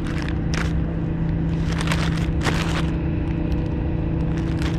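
A steady engine drone with a constant low hum, with scattered short scrapes and crackles on top, mostly in the first few seconds.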